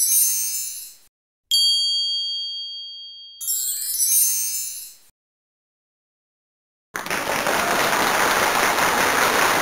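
Subscribe-animation sound effects: a high shimmering sparkle, then a bell ding ringing with a few clear high tones that fades over about two seconds, then a second shimmering sparkle. After a couple of seconds of silence, a steady rushing noise starts about seven seconds in.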